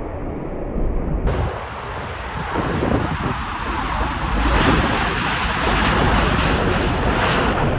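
Jet aircraft engine noise that grows louder about halfway through, with wind rumbling on the microphone.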